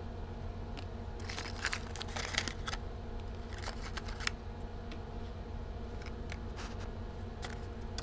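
Cardboard packaging rustling and crinkling as plastic trimmer comb attachments are pulled out of it, with light plastic clicks, in scattered clusters over a steady low hum.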